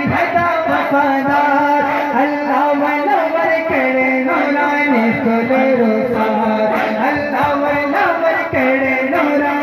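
Male voices singing a manqabat, a devotional song in praise of a saint, in long, wavering melodic lines over a steady drum beat.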